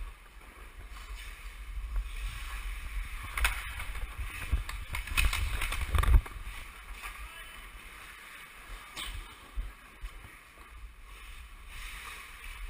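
Ice hockey play close to the camera on the rink: skate blades scraping the ice and sticks knocking, over a low rumble of wind and handling noise on the microphone. A run of sharp scrapes and knocks builds from about three seconds in and peaks in a loud knock about six seconds in, when a player is pressed right against the camera. After that it is quieter.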